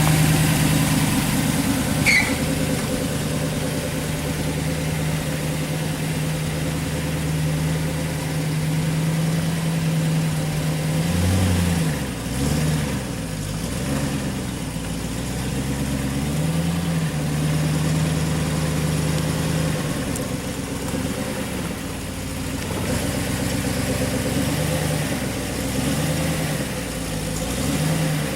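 1964 Chevrolet Corvette's 327 small-block V8 running at a steady speed, then its revs rising and falling several times from about eleven seconds in. It settles, and wavers up and down again near the end.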